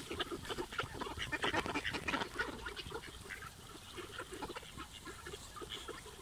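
A large flock of mallards quacking and chattering as they feed on the ground, many short calls overlapping, busiest in the first half and thinning out toward the end.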